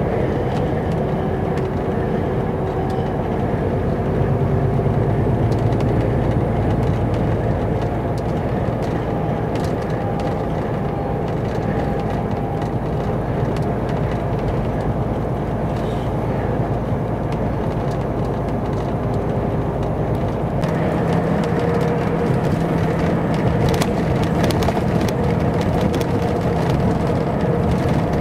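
Inside the cab of a Volvo FH truck at motorway speed: a steady engine drone mixed with tyre and road noise. About two-thirds of the way in the sound changes abruptly, the deepest rumble dropping away and a different engine tone taking over, with faint rattling ticks from then on.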